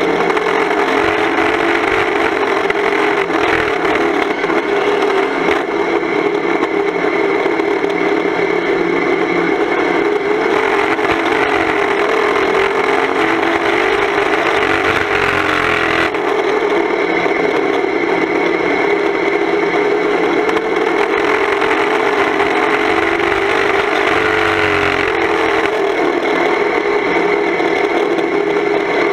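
Volvo 240 estate banger racing car's engine running hard, heard loud from inside the stripped cabin, its revs rising and falling through the corners.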